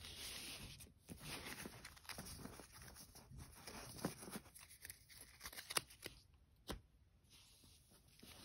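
Magic: The Gathering cards being swept together across a playmat and squared into a stack: soft rustling and sliding of card stock, with a few sharp taps, the loudest about six seconds in.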